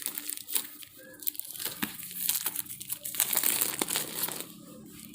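Plastic wrapping crinkling as it is torn open and pulled off a book, an irregular run of rustles and small crackles.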